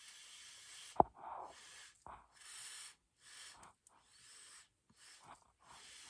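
Short puffs of breath blown through a drinking straw onto wet pour paint, about one a second, pushing the paint to open up the cells. A sharp click about a second in.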